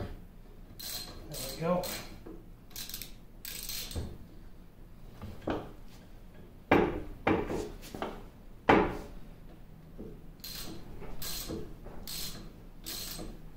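Socket ratchet wrench clicking in short strokes while a bolt on a cast-iron lathe apron is loosened, with a few loud, sharp metallic knocks around the middle.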